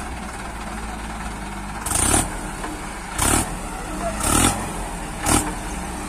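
Diesel engines of a Mahindra Arjun 555 DI tractor and a JCB 3DX backhoe running steadily under load as the mired tractor and its loaded trolley are pushed out of mud. About two seconds in come four short, loud bursts of noise, roughly a second apart.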